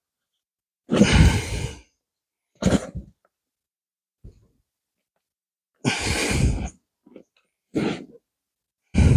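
A person's heavy breathing: about five loud sighing exhales a second or two apart, with silence between them.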